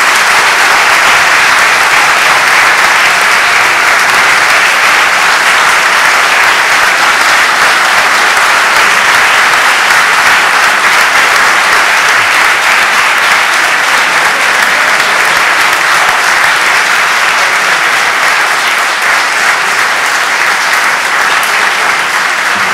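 Audience applause, a steady, loud clapping that eases slightly near the end.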